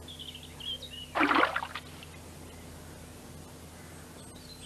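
Cartoon birds chirping, then a single loud splash of water about a second in, lasting about half a second.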